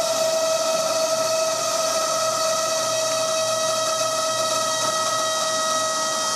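Steady whine, one held tone with overtones over a hiss, from the hydraulic system driving the Goodyear FG-1D Corsair's main landing gear up during a retraction test (gear swing).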